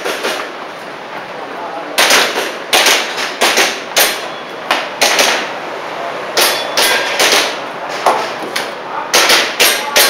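Airsoft handgun firing in quick strings of sharp pops, several shots a second, with short pauses between the strings, as in a practical-shooting stage. The first two seconds hold only lower background noise before the shooting starts.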